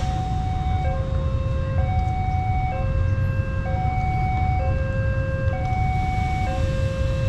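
Railway level-crossing warning alarm sounding, an electronic two-tone signal that alternates between a lower and a higher note, each held a little under a second, warning that a train is coming through. A steady low rumble runs beneath it.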